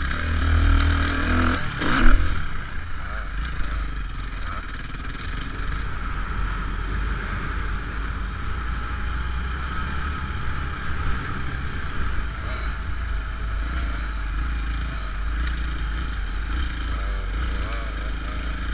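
Motocross bike engine running steadily while riding, with heavy wind rumble on the helmet-mounted microphone. A loud thump about two seconds in.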